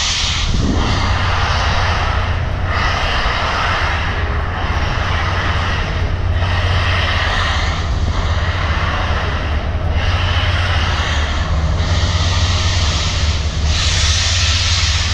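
A steam train in motion: a steady low rumble with a rushing noise over it that swells and dips about every two seconds.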